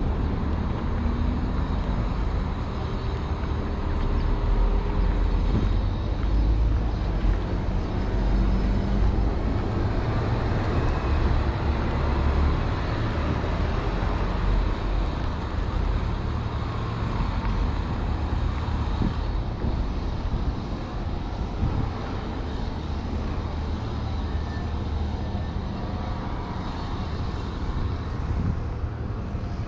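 City street ambience: steady road traffic with vehicles passing and a continuous low rumble.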